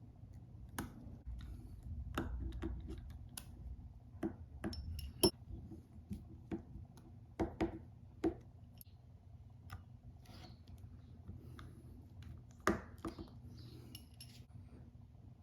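Small hard clicks, taps and light metallic clinks of repair tools and small phone parts being handled and set down, irregular and a few a second at their busiest, with the sharpest knocks about five seconds in and again near thirteen seconds.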